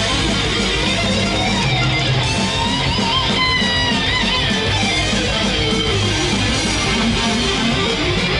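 Thrash metal song with heavily distorted electric guitars over a driving low rhythm; a lead line with bent, sliding notes comes in about three seconds in.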